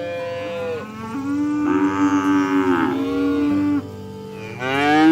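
Cattle mooing: a short moo, then a long drawn-out moo, then a louder moo starting near the end.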